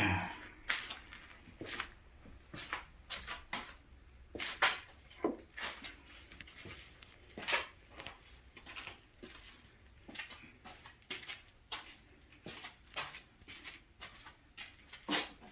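Irregular light clicks and knocks of metal parts being handled and fitted by hand while reassembling a truck fifth wheel, such as a pin going into place.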